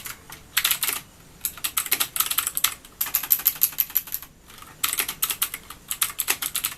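Rexus Legionare MX 3.2 mechanical keyboard with clicky blue switches being typed on fast, in quick runs of keystrokes with short pauses between them.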